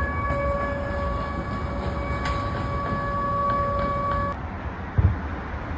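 Air raid siren sounding one steady tone that cuts off suddenly about four seconds in, over a low outdoor rumble. About a second later comes a single dull, low thump of a distant explosion.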